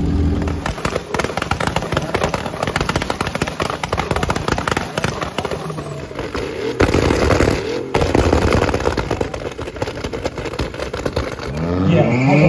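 A tuned car engine held on its rev limiter, firing rapid, continuous loud pops and bangs from an open exhaust. Near the end an engine revs up with rising pitch as a car pulls away.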